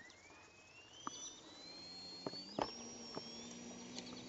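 Radio-controlled model airplane motor: a thin high whine that rises steadily in pitch as the motor speeds up, joined about a third of the way in by a lower steady hum, with a few sharp clicks.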